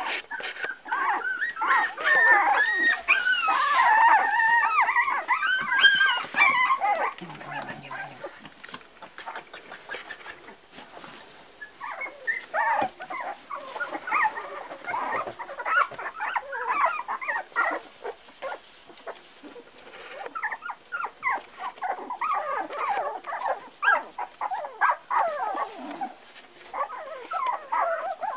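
Four-week-old Parson Russell Terrier puppies whining, yipping and play-growling as they tussle, with a dense stretch of high, wavering squeals in the first several seconds and shorter bursts later. Light clicks of their claws on the wooden floor run through it.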